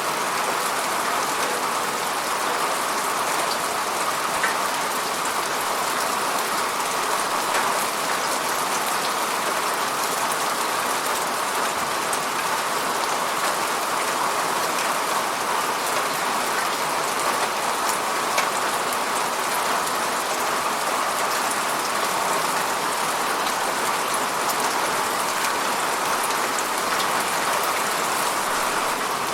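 Steady rain falling, an even dense hiss with scattered drop ticks.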